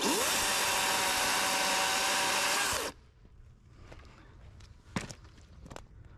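Cordless electric chainsaw spinning up quickly to full speed, running steadily for about three seconds, then cutting off abruptly as the trigger is released. A few light knocks follow, the sharpest about five seconds in.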